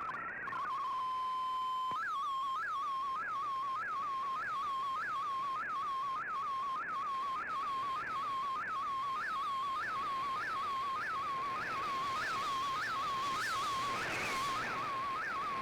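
Digital image transmission tones from a shortwave data broadcast: a steady single tone, then from about two seconds in a regularly repeating warble that sweeps up and drops back about one and a half times a second.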